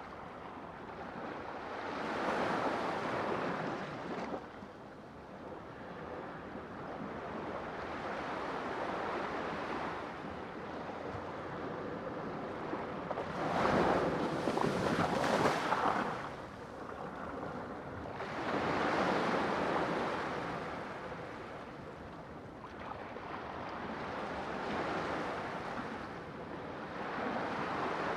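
Sea waves breaking and washing in, swelling and fading in slow surges every few seconds, the loudest about halfway through.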